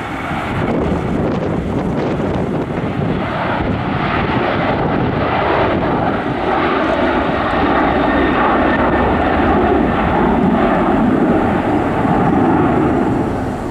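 Boeing 737-800's twin CFM56-7B turbofan engines at takeoff thrust during the takeoff roll: a loud, steady jet noise that builds about a second in and eases near the end as the aircraft passes by.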